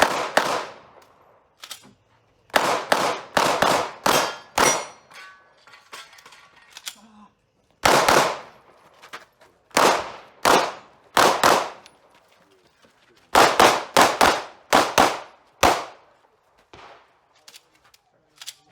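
Pistol fired in quick pairs and short strings of shots, with pauses of a second or two between groups while the shooter moves or changes position, during a timed competition stage.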